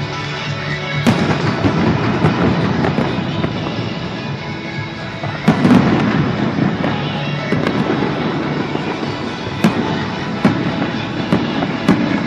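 Fireworks bursting and crackling, with sharp reports about a second in, a loud cluster around five and a half seconds, and a few more near the end, over background music.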